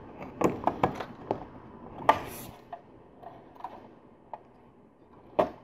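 Plastic LEGO bricks clicking and knocking together as a built module is handled and fitted onto a LEGO truck chassis. A cluster of small clicks comes in the first second and a half, a sharper click with a short rustle about two seconds in, and one more click near the end.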